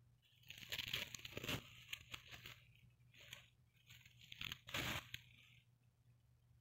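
Thin clear plastic bag crinkling and rustling as it is pulled off a speaker by hand, in two bouts: one in the first couple of seconds and another a little before the five-second mark.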